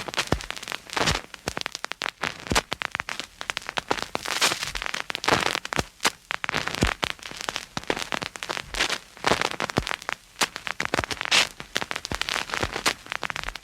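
Phonograph needle riding a spinning record's surface: dense, irregular crackle and pops over a steady hiss, with no music playing.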